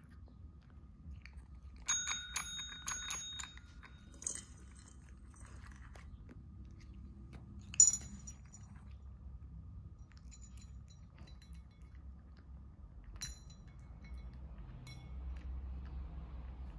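Cat eating dry kibble from a bowl: crunching and chewing, with a run of clinks against the bowl that ring briefly about two seconds in, and one sharp, loud clink near eight seconds.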